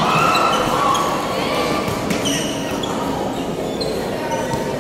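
Basketball game in a gym: a ball bouncing on the court amid a constant background of voices, with short sharp sounds from play on the court.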